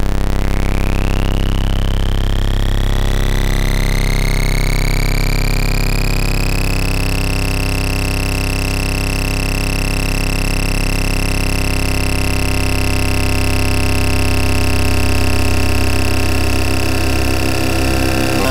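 Electronic oscilloscope music: a dense synthesized tone, rich in overtones, rising in pitch over the first six seconds or so and then holding steady.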